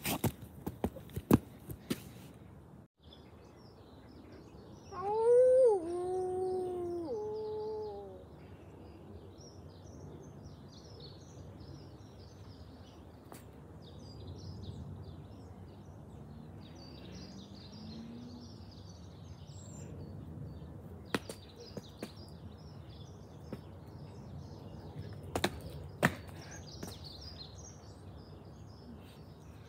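A child's imitation wolf howl about five seconds in: one note that rises and then falls, followed by two shorter, lower notes. Birds chirp faintly throughout, with a few sharp knocks at the start and again in the last third.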